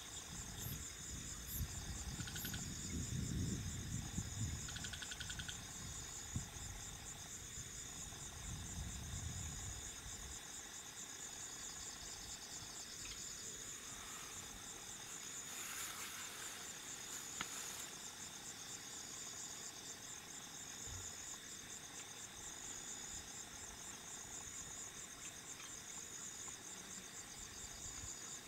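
Night insect chorus: several insects trilling steadily at different high pitches, some in fast pulses. A low rumble sits under it for about the first ten seconds.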